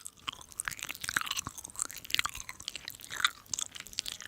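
A person chewing and crunching food, with many short, irregular mouth clicks.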